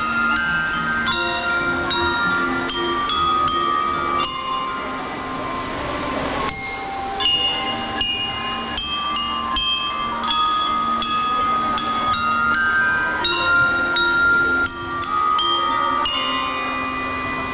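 Drum and lyre corps playing, the metal bell lyres struck with mallets carrying a quick melody of ringing notes.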